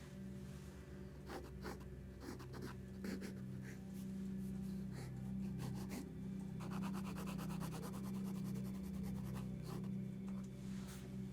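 Drawing strokes scratching across paper during sketching, short strokes coming one after another with a quick run of rapid hatching about two thirds of the way through. A steady low electrical hum runs underneath.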